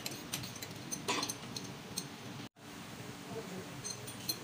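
Scattered metallic clinks and clicks of a wrench working the hold-down nuts of a large diesel engine's starting air valve, over a steady low machinery hum. The sound drops out for an instant about halfway through.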